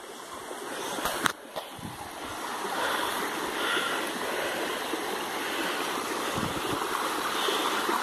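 Shallow rocky river running: a steady rush of flowing water, with a brief knock about a second in.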